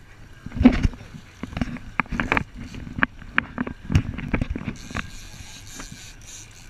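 A dozen or so irregular knocks and thumps over about four seconds: the action camera being handled and repositioned on the boat, bumping against its mount and the hull.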